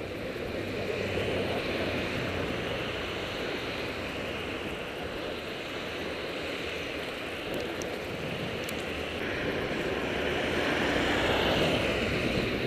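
Steady rushing wind noise on the microphone of a cyclist's action camera while riding, growing a little louder near the end.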